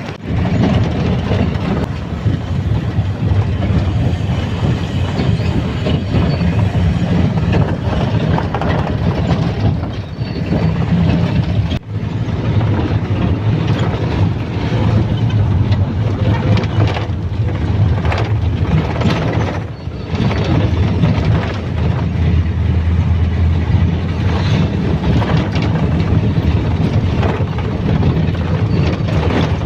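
Steady low rumble of engine and road noise inside a moving minibus taxi, with a couple of brief dips in level.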